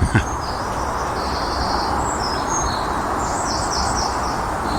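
Small birds chirping and singing in short high notes, with a quick run of chirps past the middle, over a steady rushing noise.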